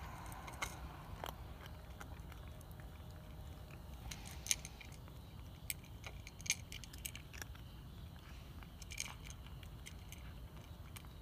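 Cat eating from a bowl: faint, irregular clicks and crunches of its chewing and of food against the bowl, a few sharper ones standing out, over a low steady rumble.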